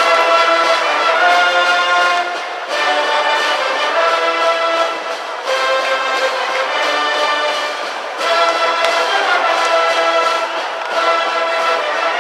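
High school brass band playing a baseball cheering tune, a short brass phrase repeated about every three seconds.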